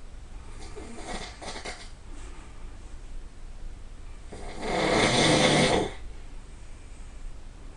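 A person snoring: a fainter breath about a second in, then one loud snore lasting about a second and a half about halfway through.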